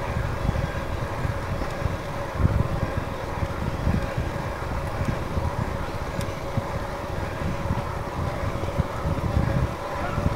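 Wind buffeting on the microphone of a bike-mounted camera while an e-bike is ridden, a gusty low rumble with a faint steady whine under it.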